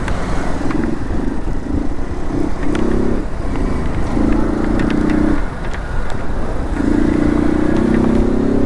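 Motorcycle engine running under way on a wet road, its note coming up in spells under throttle with a brief let-off about five and a half seconds in. A steady rush of wind and road noise lies underneath, with scattered light ticks.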